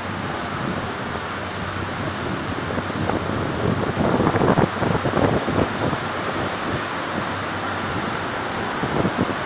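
Steady hiss of heavy rain with a passenger train rolling slowly past. Louder buffeting comes from about four to six seconds in and again briefly near the end.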